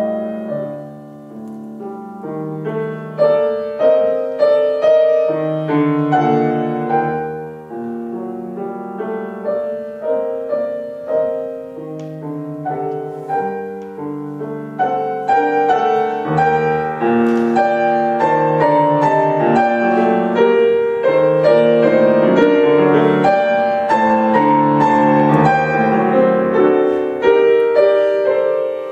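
Grand piano played solo in a classical piece: chords and running notes, growing louder and fuller from about halfway through.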